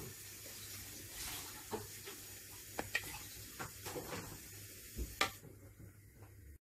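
A metal spoon stirring a thick, wet egg-and-vegetable batter in a bowl, with a soft wet churning sound and a few light clicks of the spoon against the bowl.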